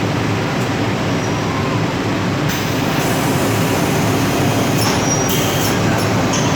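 Steady, loud machinery noise from an industrial furnace and robot cell running. From about halfway in it carries a few brief high squeaks and clinks, clustered near the end.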